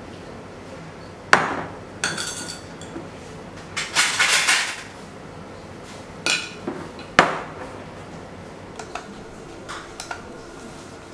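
Glassware handled on a countertop: a clip-top glass jar and a glass bowl clinking and knocking, with two sharp knocks and a couple of short clattering stretches. Near the end come light ticks of a spoon scooping flour out of the jar.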